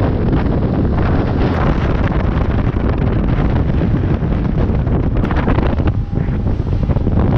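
Heavy wind buffeting the microphone on a Hurricane deck boat running at speed, over the rush of water along the hull and the boat's engine.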